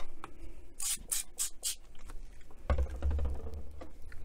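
Four short squirts of cleaner from a spray bottle onto a radio's speaker grille, about a second in, then a low thump near the end as the radio case is handled.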